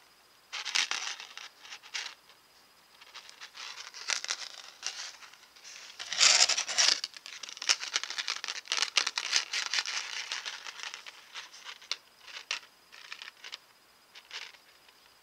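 Paper earring cards being handled close to the microphone: irregular bursts of rustling and crinkling with small clicks, loudest about six seconds in.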